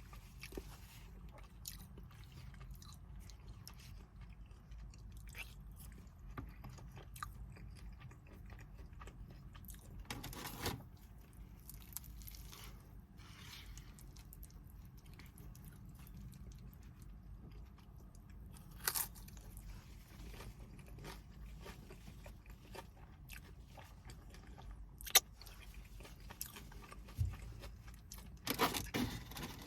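A person eating close to the microphone: chewing and biting with crunches and scattered sharp clicks, over a steady low hum.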